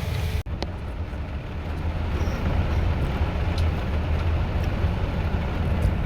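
Cabin noise of a bus driving in heavy rain: a steady low engine and road rumble under an even hiss, with a few light clicks and rattles. The sound breaks off for an instant about half a second in.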